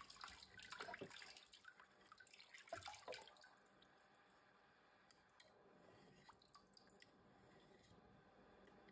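Water scooped by hand from a basin and splashed onto a wet 8000-grit whetstone, splashing and dripping for about three seconds. After that, faint scraping of a 440C steel razor stroked across the wet stone.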